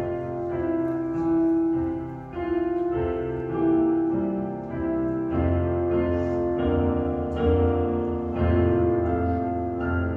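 Piano playing slow, sustained chords, a new chord about every second.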